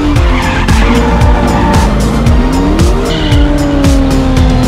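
Music with a fast steady beat mixed with car engines revving up and down and tyres squealing from drifting and a burnout.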